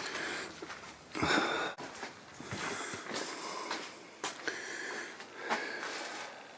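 A person breathing and sniffing close to the microphone, with a stronger breath about a second in and a few light clicks.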